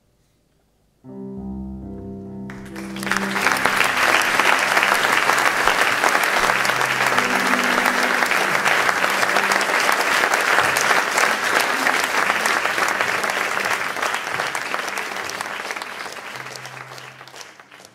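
Theatre audience applauding over band music with keyboard: the music starts about a second in, the applause swells in a second later and runs on loud and steady, then fades away near the end.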